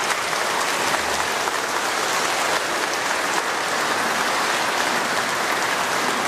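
A church congregation applauding steadily at the end of a homily: many hands clapping at once.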